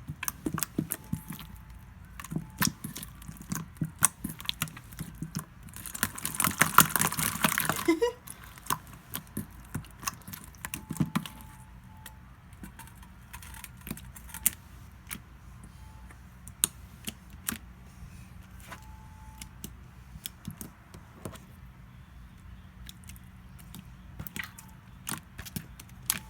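White-glue and borax slime squeezed and stretched by hand, giving many irregular sticky clicks and pops. About six seconds in there is a louder, noisier squelching stretch lasting about two seconds.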